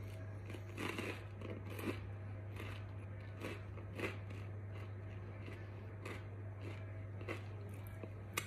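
Close-up eating sounds of pizza: irregular chewing, crunching and mouth smacks as pieces are put in the mouth and fingers licked. A steady low hum runs underneath.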